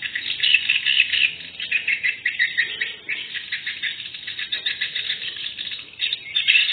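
Swiftlet calls: a dense, continuous twittering of rapid high chirps, thin-sounding with no top end.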